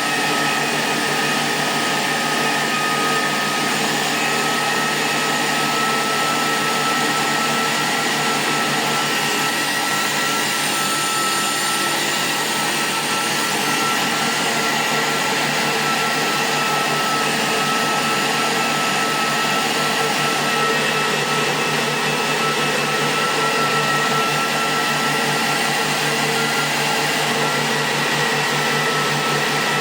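The power supply of a 2000-watt IPL laser hair-removal device running on test after repair: a steady machine noise with a few steady whining tones, even in level throughout.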